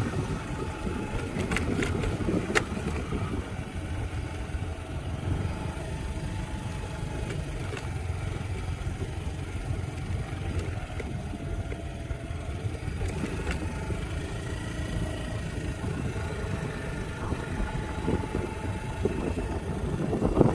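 Small motorbike engine running steadily while riding, its faint engine note shifting a little, over a low rumble of wind and road noise.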